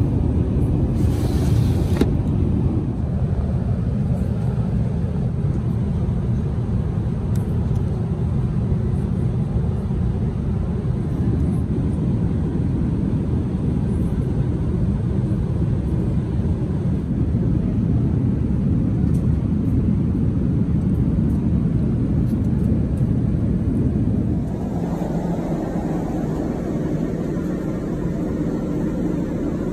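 Steady rumble of an Airbus A380 airliner's cabin in cruise flight, engine and airflow noise. About a second in there is a brief hiss as the plastic window blind slides down. Near the end the rumble drops slightly and changes in tone.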